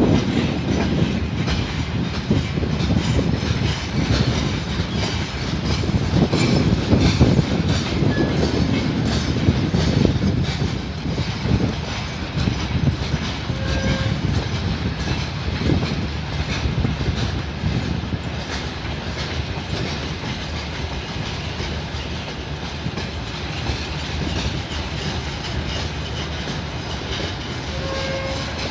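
Passenger train cars rolling by, wheels clattering over the rail joints in a steady clickety-clack with a low rumble, growing a little quieter in the second half.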